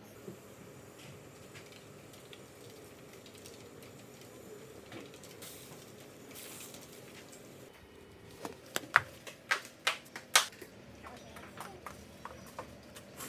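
Plastic bag rustling, then a quick run of sharp clicks and snaps about eight seconds in, the loudest near the middle of the run, tailing off into lighter clicks.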